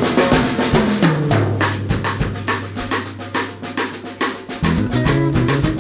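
Background music with a steady drum beat; a single bass note is held through the middle, then the bass line picks up again near the end.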